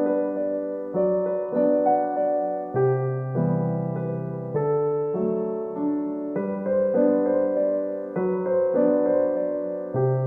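Gentle background piano music, with soft chords changing about every half second to a second.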